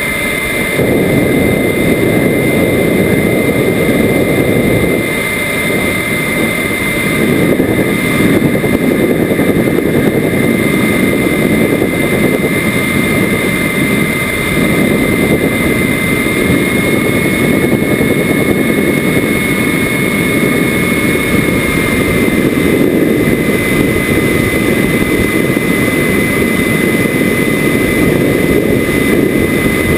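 Onboard sound of a model Rafale jet in flight: a steady high whine from its engine over loud rushing airflow. The whine rises a little in pitch for a few seconds midway, then settles back.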